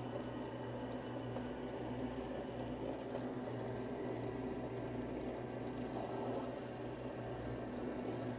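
Small machine spindle motor running with a steady hum while a drill bit bores into an aluminium fixture plate.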